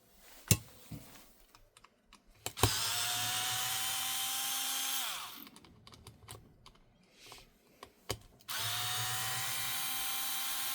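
A small electric power screwdriver running in two steady spells of about two and a half seconds each, each winding down as it stops, with light clicks and taps in between.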